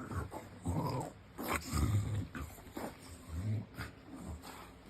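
English bulldog making a series of about five low, pig-like grunts, growing weaker near the end.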